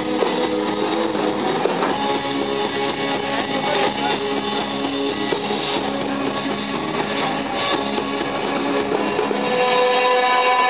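A live rock band playing, led by strummed electric guitars. Near the end the bass and drums drop away and a held chord rings on.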